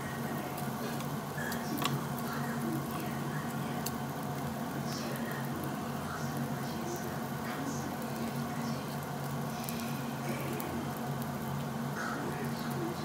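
Marinated duck meat sizzling on a hot grill plate, with scattered small crackles and pops over a steady low hum.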